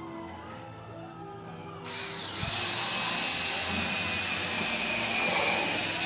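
A small electric motor whines loudly and steadily. It starts about two seconds in and holds at a high pitch to the end, dipping slightly in pitch near the end.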